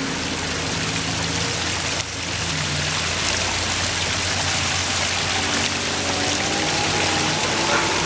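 Small rock waterfall spilling over stacked stone ledges into a pond: a steady rush of falling water.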